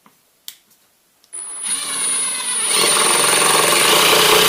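Hydraulic impact driver sinking a Reisser Cutter self-countersinking screw into a wooden board. After a brief click, the driver starts about a second in and runs steadily with a high whine, getting louder about halfway through.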